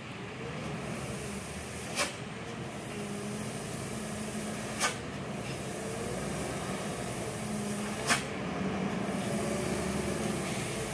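Hino 500 dump truck's diesel engine running low and steady as the fully loaded truck creeps down a steep grade, with three short, sharp hisses of air about three seconds apart, typical of the air brakes being worked on the descent.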